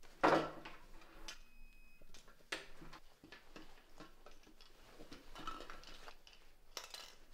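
A nylon backpack being taken and handled on a table. A rustle and thump come just after the start, then light clicks and fabric rustling as it is opened and searched.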